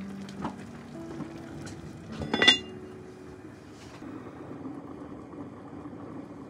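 Heavy cast-iron lid set down onto a Staub cast-iron cocotte, a single sharp metallic clink with a short ring about two and a half seconds in, over soft background music.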